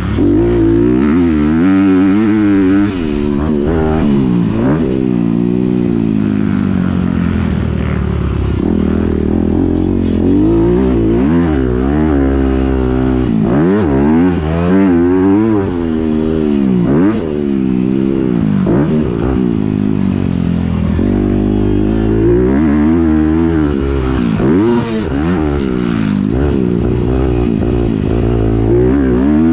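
Dirt bike engine, heard from on board, revving up and down again and again as the rider opens and closes the throttle around the motocross track.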